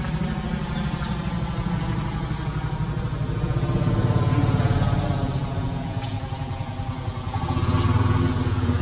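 An engine running steadily with a pulsing low drone, growing louder about four seconds in and again near the end.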